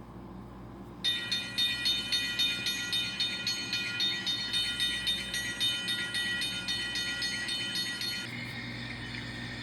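Railroad bell sound effect ringing rapidly, about two to three strikes a second, over a low train rumble; the ringing starts about a second in and stops near the end.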